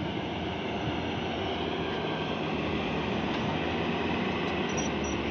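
Wheeled excavator's diesel engine and hydraulics working steadily under load as the bucket swings over and dumps soil into a tractor trolley.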